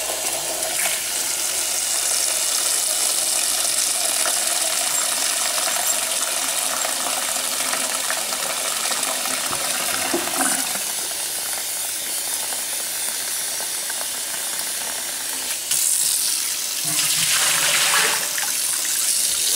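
Kitchen tap running into a glass measuring cup in a sink, the stream splashing as the cup fills. Near the end comes a louder, brighter stretch of water sound as the water goes into a stainless steel stockpot.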